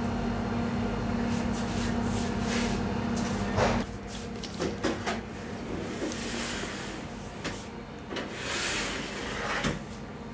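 A steady machine hum cuts off about four seconds in. Then come metal clanks, knocks and scraping swishes as a baking tray of bread dough is slid into a stainless-steel rack cabinet and a wire rack is handled.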